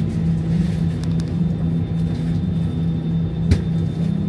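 Steady low drone in an Airbus A319 cabin before takeoff, with one sharp knock about three and a half seconds in.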